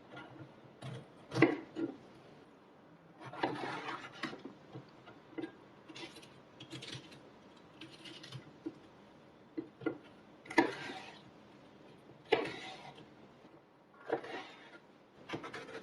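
Kitchen utensils handled at intervals: sharp knocks and clinks with short scraping rubs, a second or more apart.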